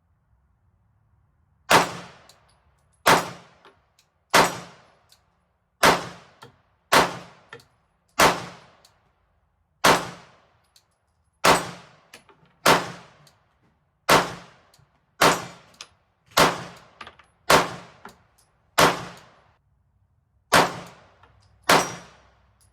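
Glock 19X 9 mm pistol fired in slow, steady single shots, about sixteen of them a little over a second apart. Each shot is followed by a ringing echo that dies away within about a second.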